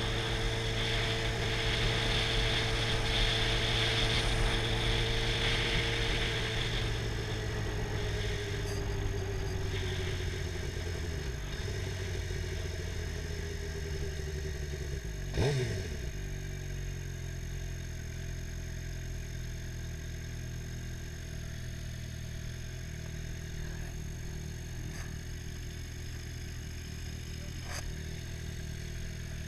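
Sport motorcycle engine running while riding, with wind rushing past the helmet camera at first. The engine pitch falls gradually as the bike slows, dips sharply and rises again once about halfway through, then settles into low, steady running at slow speed.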